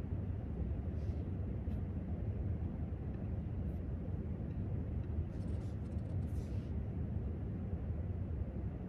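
Steady low rumble of library room tone, with a few faint light clicks and a brief soft rustle between about five and six and a half seconds in.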